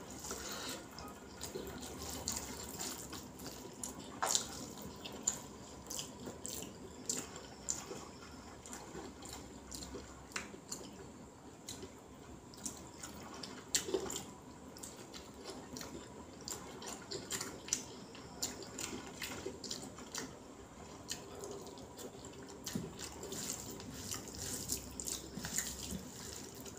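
Eating by hand: a man chews mouthfuls of rice mixed with sambar, and his fingers mix the rice on a banana leaf. The sound is a run of irregular wet clicks and smacks.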